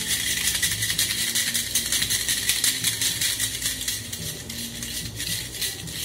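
A cocktail shaker rattling in a fast, even rhythm. The loose Hawthorne-strainer spring inside is being shaken with egg white and no ice, a dry shake that whips the egg white into foam. The rattle weakens near the end as the shaking eases.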